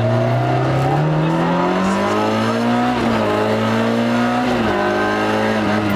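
Rally car engine heard from inside the cabin, accelerating hard: the revs climb, dip briefly at a gear change about three seconds in, climb again and drop at another change near the end.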